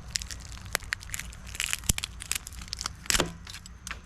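Electronics being smashed apart: a run of sharp cracks and crunching of hard casing, with louder snaps about two seconds in and again near three seconds.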